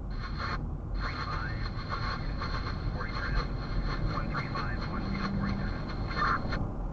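Steady low road rumble inside a moving vehicle, with a flickering hiss on top that cuts out briefly near the start and again near the end.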